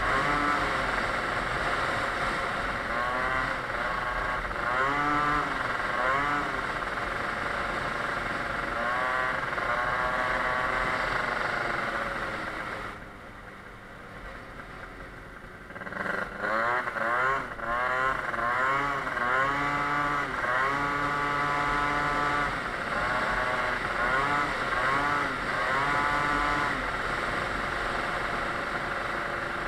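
Tuned two-stroke scooter engine, fitted with a Stage6 MK2 cylinder kit, a Yasuni R exhaust and a 19 mm Motoforce carburettor, revving up and falling back again and again as it accelerates and shifts through its rev range. About 13 seconds in the throttle comes off and the engine drops to a low, quiet run for a few seconds, then it revs up again in quick rising sweeps.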